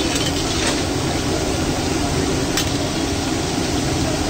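Samosas deep-frying in hot oil in an iron kadhai: steady sizzling and bubbling, with a couple of faint ticks.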